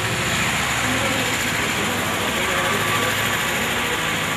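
A steady mechanical hum with an even hiss over it, like a running engine, unchanging throughout.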